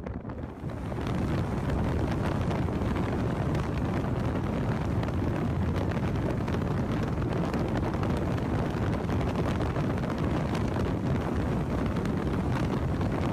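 Heavy, steady wind buffeting on a phone microphone, mixed with the road noise of a car moving at highway speed; it rises sharply about a second in and stays level.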